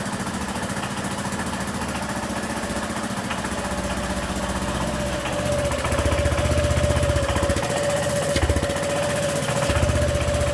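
Honda PCX scooter's single-cylinder engine idling with a fast, even pulsing, and a steady whine coming in about halfway through. The noise sounds like something loose and comes from exhaust escaping at the header joint, where the sealing gasket ring was left out.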